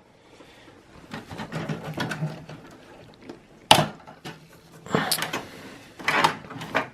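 Irregular clicks, rattles and scraping of plastic connectors and cables being handled inside a desktop computer case as the SATA cable is unplugged, with one sharp click a little under four seconds in and a run of clicks near the end.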